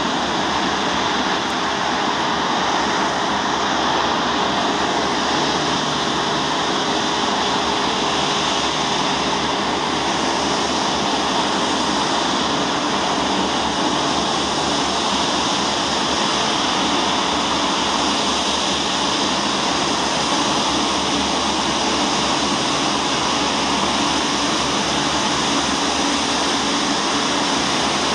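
Airbus A340-500's four Rolls-Royce Trent 500 turbofans running at taxi power: a steady, loud jet rush with a faint high whine over it.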